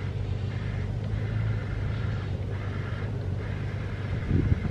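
Power-adjust motor of an aftermarket Most Plus tow mirror on a Ford F-150 whirring in four or five short spells, with brief pauses, as the mirror glass is driven in different directions, over a steady low hum.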